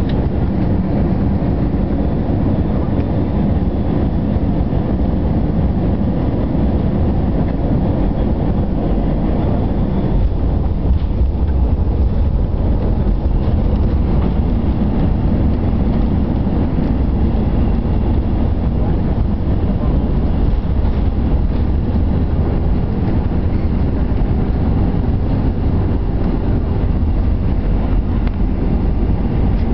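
Cabin noise inside an Airbus A321-200 rolling out on the runway after landing: a steady low rumble from the engines and the wheels on the runway, heard through the cabin over the wing with the ground spoilers raised.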